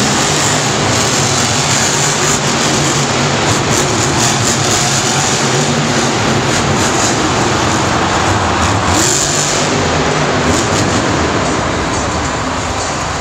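Two monster trucks' supercharged V8 engines revving and running hard as they race around a dirt stadium track, the pitch rising and falling with the throttle, growing a little quieter near the end.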